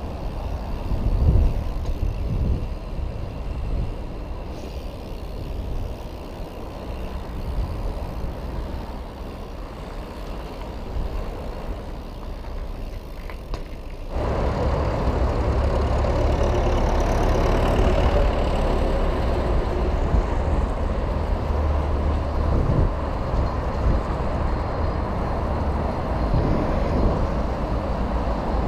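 Wind rush on a GoPro's microphone and the low rumble of mountain-bike tyres rolling over asphalt. About halfway through there is a sudden step to a louder, fuller rumble as the bike rolls over a bumpy dirt verge.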